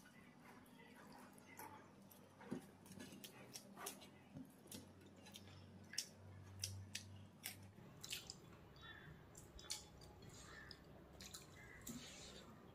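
Faint eating sounds: scattered wet mouth clicks and smacks of chewing, and fingers working rice and curry on a plate.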